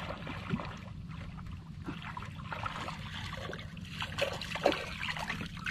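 Water trickling and splashing at the side of a small outrigger boat as a hand line is hauled in with a needlefish on it, with a few stronger splashes about four seconds in. A steady low rumble runs underneath.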